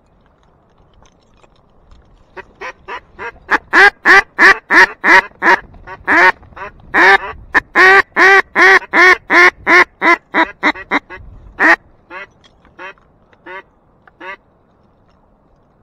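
Duck call blown at close range in long runs of hen mallard quacks, about three a second. The quacks start soft, grow very loud through the middle, then thin out to a few spaced quacks near the end.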